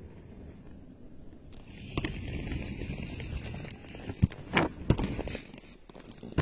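Inline skate wheels rolling on coarse asphalt: a low rumble, with a hiss coming in about one and a half seconds in, and a handful of sharp clicks and knocks around the middle.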